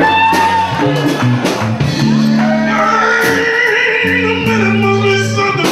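Live electric blues band playing, with bass and drums under a lead guitar line of bent, held notes between sung verses.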